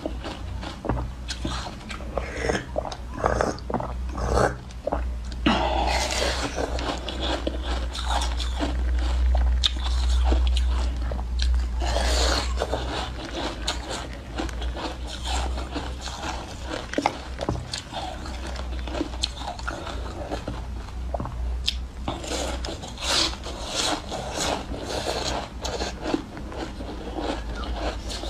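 Frozen milk ice being bitten and chewed close to the microphone: repeated crisp crunches and crackles as the ice breaks between the teeth, over a steady low hum.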